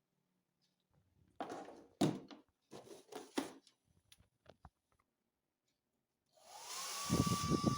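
Hair dryer being handled with several knocks and clicks, then switched on about six seconds in: the motor spins up to a steady high whine over a rush of air, with low rumbling as it starts.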